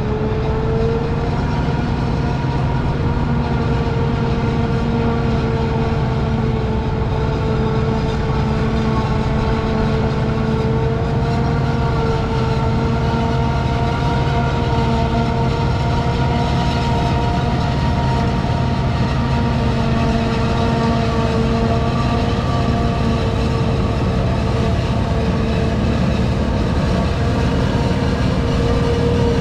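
Heavy diesel farm machine driving along the road: a steady engine drone with a constant high whine over it.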